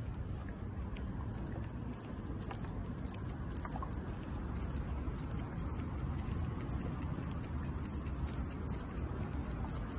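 Light, irregular patter of footsteps and a dog's paws on damp pavement over a steady low rumble.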